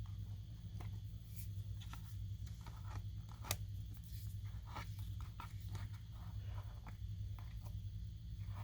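Small handling noises: light clicks, taps and rubbing as small plastic model parts are handled and wiped, with one sharper click about three and a half seconds in, over a steady low hum.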